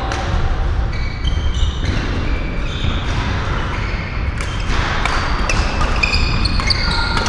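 Badminton rally: sharp strikes of rackets on the shuttlecock and short squeaks of court shoes on the floor, over a steady din of play from neighbouring courts.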